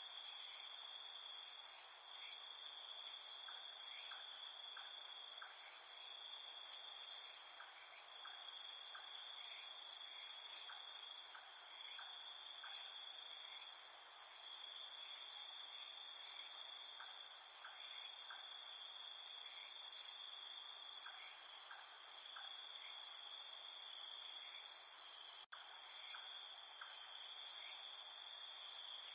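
Night chorus of crickets and other insects: steady high-pitched trilling, with scattered short chirps at a lower pitch. A split-second break in the sound comes about 25 seconds in.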